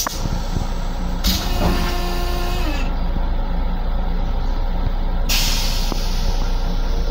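Long Island Rail Road M7 railcar heard from inside its small restroom: a steady low rumble of the train, with hissing that comes and goes, one stretch carrying faint tones that drop in pitch as it ends.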